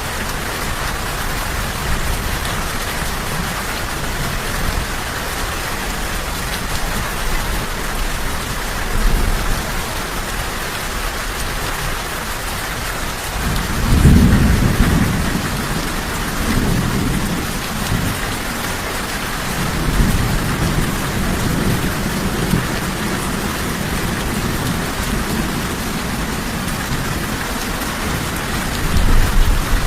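Steady rain hissing, with low rolls of thunder rumbling under it. The loudest roll comes about halfway through, a weaker one a few seconds later, and another builds near the end.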